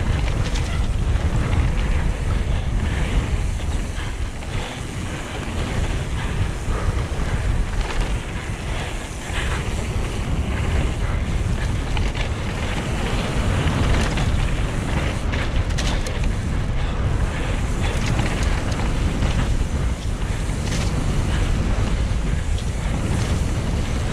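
Wind buffeting the action camera's microphone as a mountain bike descends a wet trail, over a constant low rumble of tyres and ground noise, with scattered short rattles and clicks from the bike over bumps.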